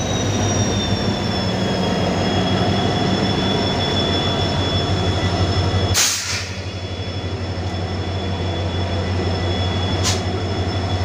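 Diesel train running close alongside and creeping past: a steady low diesel hum with a high whine above it. A whoosh comes about six seconds in, after which the hum briefly drops, and a sharp clank comes near the end.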